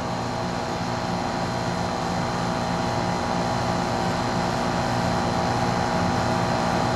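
A 2016 2-ton Lennox heat pump running steadily in heat mode: an even mechanical hum with a constant thin whine above it.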